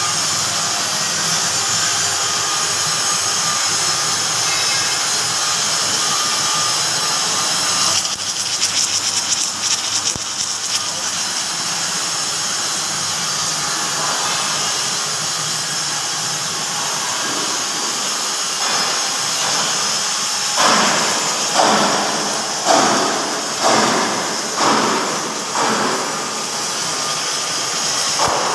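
Submerged arc welding machine running with a steady hiss-like rush. A spell of dense crackling comes about 8 seconds in, and near the end there is a run of surges about one a second.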